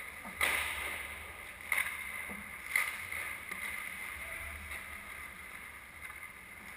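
Skate blades on rink ice: steady swishing strides with three sharp scrapes. The loudest comes about half a second in, the others about a second apart, and each trails off in a hiss.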